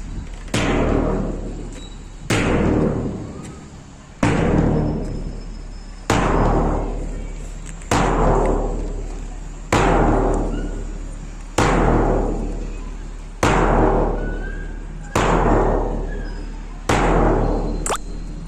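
A deep drum beat struck slowly and evenly, about once every two seconds, each stroke ringing on and fading away before the next, as a time-keeping beat for the exercise.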